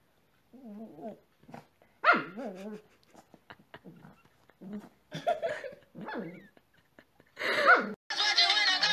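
Cocker spaniel mix puppy growling and giving short barks in several bouts of about a second each while it digs and tugs at a blanket, with one sharper rising yelp about two seconds in. Music starts near the end.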